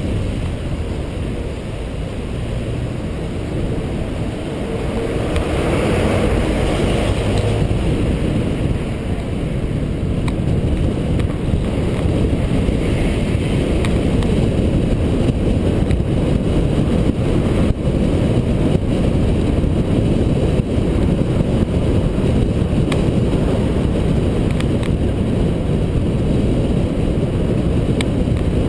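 A car driving along a town street, heard from a camera on its bonnet: a steady low rumble of wind buffeting the microphone, mixed with road and engine noise.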